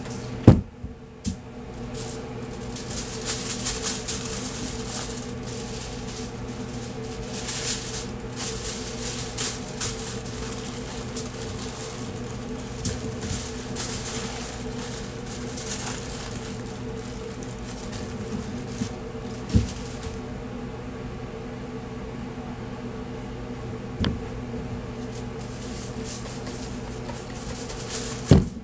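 Aluminium foil crinkling and rustling in bursts as a brisket is wrapped by hand, with a few sharp knocks. A steady machine hum runs underneath.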